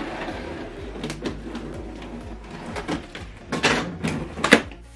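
Cardboard box being opened: scissors working at the packing tape and the cardboard flaps being pulled and handled, giving irregular rustles, scrapes and knocks. The loudest are a few sharp ones in the second half.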